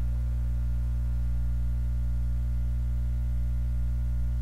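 Steady electrical mains hum: a loud, unchanging low buzz with a stack of even overtones, with no other sound over it.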